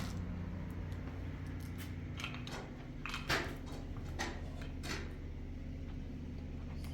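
A motor running steadily with a low hum, under several short scrapes and knocks.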